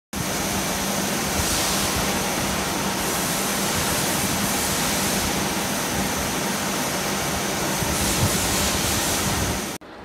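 A PTFE rotation sintering oven running, a steady, loud rushing noise like its air-circulation fan, with a low steady hum underneath. The sound stops abruptly just before the end.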